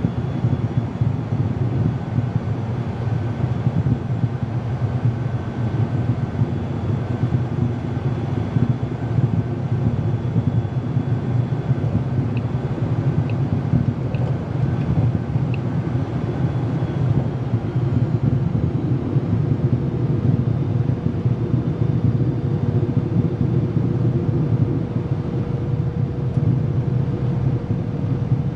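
Twin turbofan engines of a Cessna Citation CJ3+ running at taxi idle, heard from the cockpit as a steady low rumble with faint steady whining tones above it.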